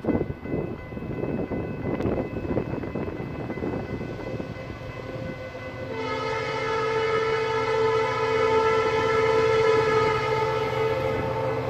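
Diesel freight locomotive of the Escanaba and Lake Superior Railroad approaching with a low rumble, then about halfway through sounding its multi-tone air horn in one long, loud, held blast for the grade crossing.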